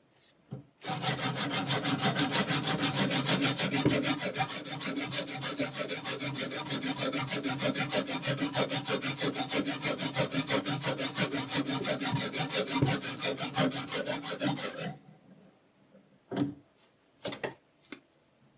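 Sharpening stone scraping rapidly back and forth along a steel knife edge, a steady run of quick rasping strokes that stops abruptly, followed by a few short clicks near the end.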